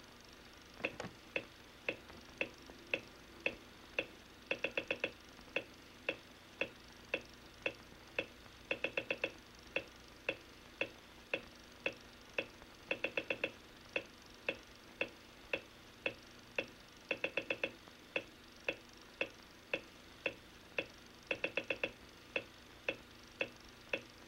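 A dry, even ticking beat, about two ticks a second, broken every four seconds or so by a quick run of four ticks, repeating as a steady loop.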